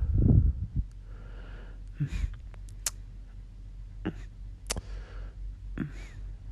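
Kissing sounds made close to the microphone: a loud puff of breath on the mic at the start, then several sharp lip smacks about a second apart, with soft breathing between.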